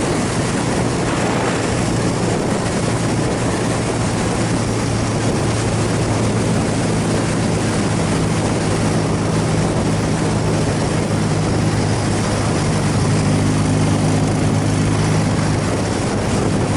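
Air-cooled BMW flat-twin motorcycle engine running steadily at road speed under a loud rush of wind on the microphone.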